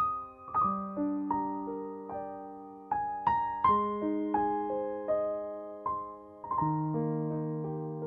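Background music: a gentle piano melody of struck notes over held chords.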